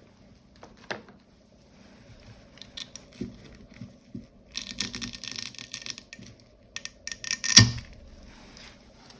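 Support material being picked and scraped out of the stem cavity of a 3D-printed keycap: scattered small plastic clicks, a dense stretch of crackly scraping about halfway through, and one sharp loud snap near the end.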